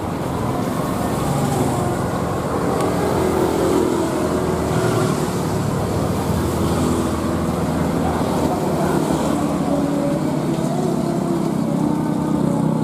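Twin jet engines of a Boeing 737 airliner running as it rolls along a wet runway. A steady rumble with a faint engine hum, growing a little louder about a second in.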